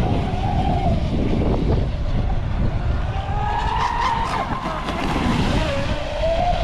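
Radio-controlled boat's motor whining, its pitch rising and falling as the throttle is worked, over a steady low rumble.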